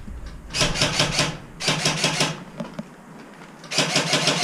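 Rapid mechanical clicking in three short bursts of under a second each, about a dozen clicks a second.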